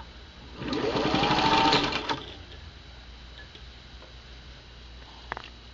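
Singer 15-91 gear-driven electric sewing machine run in reverse for about a second and a half, its motor whine rising as it speeds up over the rapid needle strokes; the presser foot is up, so the denim is not held for stitching. A single sharp click near the end.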